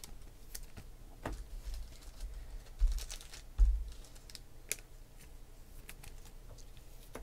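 Trading cards being handled and set down onto piles on a table: scattered light clicks and card flicks, with two dull thumps on the table about three seconds in.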